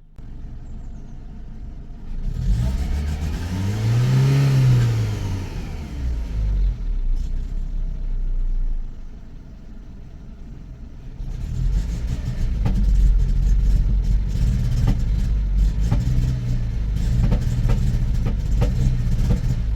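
Renault engine revved from idle: it climbs once and falls back, idles, then from about halfway runs rough and stuttering with repeated crackles as the throttle is held, like a misfire. The owner puts it down to lack of fuel, from either a weak fuel pump or a faulty fuel pressure regulator.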